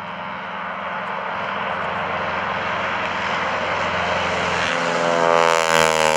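Stearman biplane's radial engine and propeller at takeoff power, climbing out just after lift-off and passing low. It grows louder as the plane approaches, is loudest about five seconds in as it passes, and its pitch begins to drop as it goes by.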